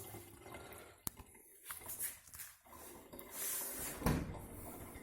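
Quiet kitchen handling sounds right after the tap is shut off: a sharp click about a second in, a short hiss, then a thump just after four seconds.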